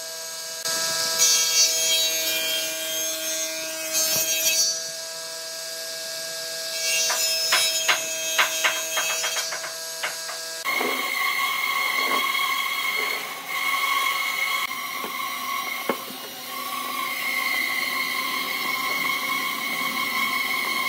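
Table saw running with a steady tone, cutting through a round wood slab in two stretches of rough sawing noise, the second with a quick run of ticks. About halfway through it cuts off abruptly, giving way to a different steady sound with two high sustained tones.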